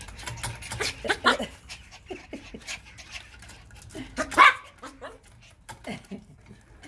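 Schipperke dogs panting with excitement, with two louder short barks, about a second in and just past four seconds.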